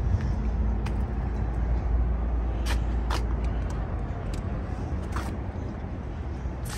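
Steady low rumble of heavy truck diesel engines running, with a few short sharp clicks.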